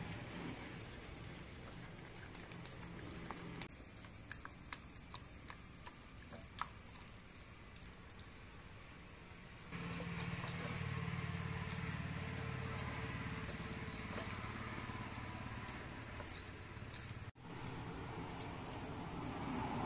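Hands mixing spice powder, flour and egg into a paste in a ceramic bowl: soft gritty rustling and squishing with a few light clicks. About halfway through, a louder steady low hum comes in underneath.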